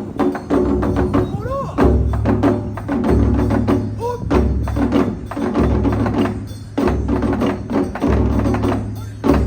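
Taiko drums, nagado-daiko, played in an ensemble rhythm: a deep drum beat about every 1.2 seconds under faster, sharper strikes. Short rising shouts come about one and a half and four seconds in.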